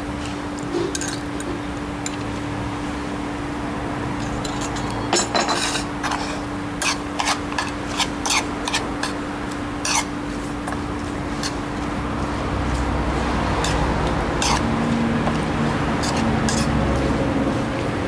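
Metal spoon tossing a blood cockle salad in a ceramic bowl: sharp clinks of the spoon against the bowl, most of them in the middle, then steadier stirring and scraping toward the end.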